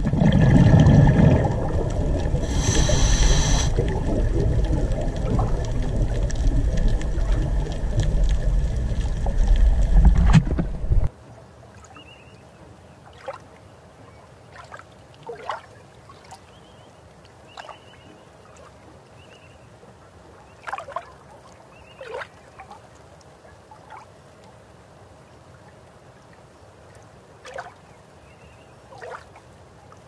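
Underwater recording: a loud, low rumble of moving water with a brief hiss about three seconds in. It cuts off suddenly about eleven seconds in. After that there is a quiet hiss with scattered faint clicks and short chirps.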